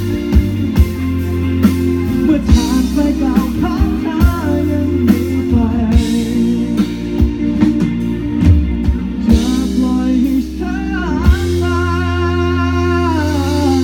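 Live pop-rock band playing, with a male lead vocal, electric guitar and drum kit. The drums stop about eleven seconds in, leaving held chords under a long sung note with vibrato.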